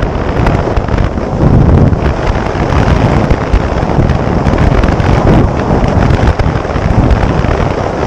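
Heavy wind buffeting on the microphone of a camera on a motorcycle moving at road speed, with the bike running underneath the wind.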